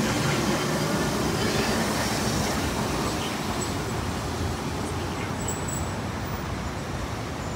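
Steady rumble of street and tram traffic, easing off slowly.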